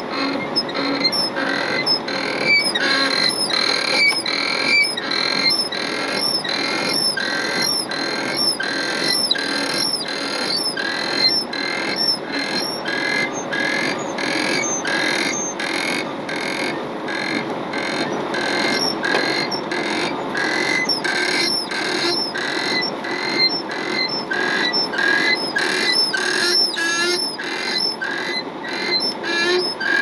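Heavy rotator wrecker's winch reeling in cable under load, a rhythmic squeak repeating about once or twice a second over the machinery noise. The squeak comes from grease stiffened by the below-zero cold.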